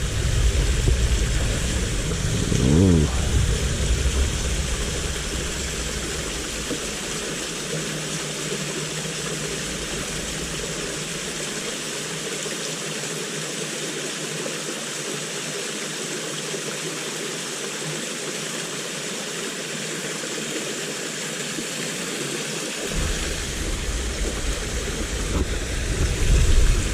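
River water rushing steadily, an even hiss with no pauses. A low rumble under it fades out over the first few seconds and comes back near the end, and a brief voice is heard about three seconds in.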